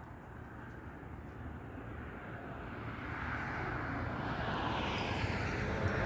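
Distant passing engine noise: a rushing sound that swells slowly, peaks near the end, then starts to fade.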